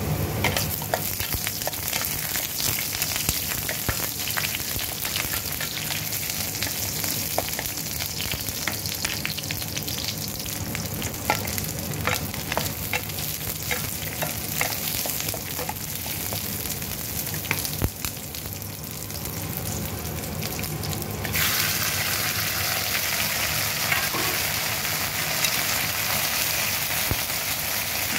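Ginger, garlic and shallots sizzling in hot oil in a clay pot, with a spatula scraping and tapping against the pot. About three-quarters of the way through, the sizzle suddenly gets louder and fuller as marinated chicken pieces go into the pot, then stays steady.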